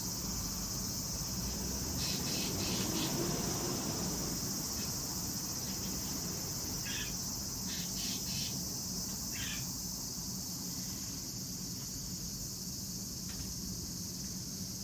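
Steady high-pitched chorus of evening insects, with a few short chirps in small clusters over it and a faint low hum underneath.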